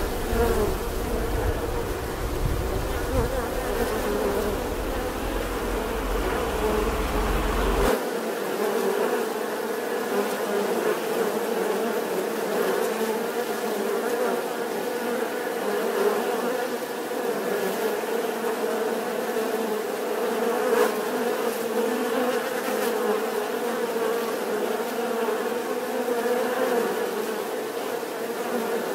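Many honeybees buzzing together in a steady, dense hum. A low rumble underneath stops abruptly about a quarter of the way through, after which only the buzzing remains.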